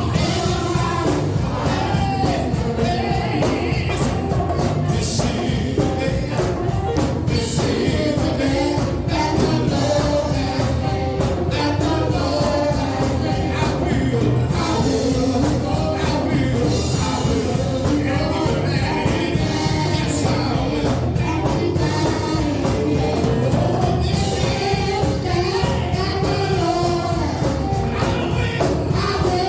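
Gospel worship music: singing over a band with a strong bass and a steady beat.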